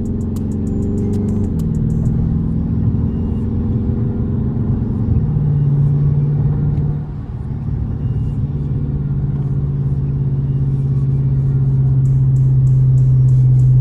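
Dodge Charger engine and road noise while driving: a steady low drone that dips briefly about halfway through, then builds steadily.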